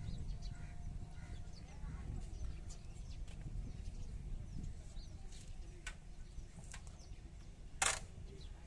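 Small birds chirping faintly over a steady low rumble, with one short, sharp call or click near the end.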